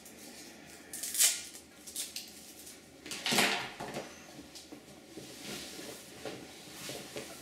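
Handling noises of packaging and parts on a tabletop: irregular rustles, scrapes and light knocks as items are picked up and moved, with louder scraping rustles about a second in and again about three and a half seconds in.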